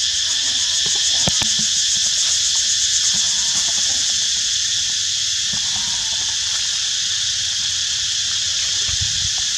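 Steady high-pitched insect chorus, a dense buzzing drone with a fast pulsing texture, with a faint knock about a second in.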